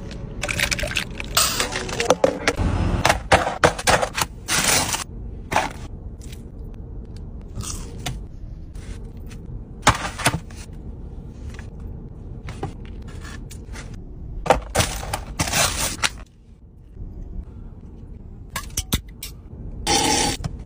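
Takeout food packaging being handled at close range: paper, cardboard and plastic scraping and crinkling in short, irregular bursts, with a few sharp knocks between quieter stretches.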